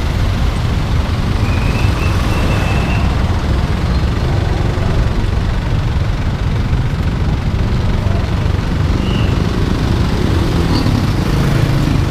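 Steady low rumble of motor traffic heard from a scooter in slow-moving traffic, close behind an idling utility truck.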